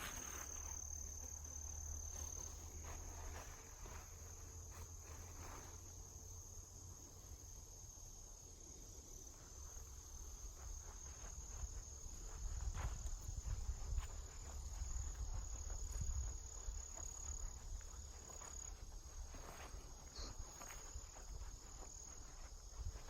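Insects trilling steadily in a continuous high, thin tone, with a low rumble underneath that swells for a few seconds in the middle.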